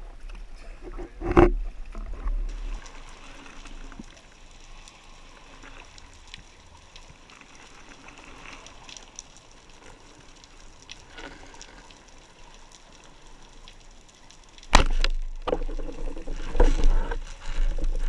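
Sea water sloshing and splashing at the surface, with one sharp knock, as a large grouper is handled beside a float. Then a soft underwater hiss with scattered faint clicks, broken near the end by a sudden, loud stretch of rough rubbing and scraping close to the camera.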